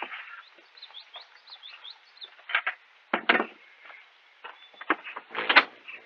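A small bird chirping a quick run of short notes, then a series of loud wooden knocks and clunks, the loudest near the end.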